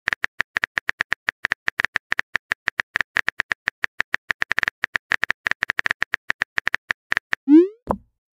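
Rapid keyboard-click sound effects, one click per letter as a chat message is typed, about six a second. Near the end comes a short rising whoosh, the loudest sound, as the message is sent, followed by a brief low thud.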